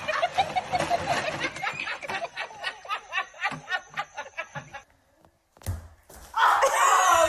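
A person laughing hard in quick repeated bursts for about five seconds, then breaking off. After a short pause comes a low thump, and near the end a loud voice.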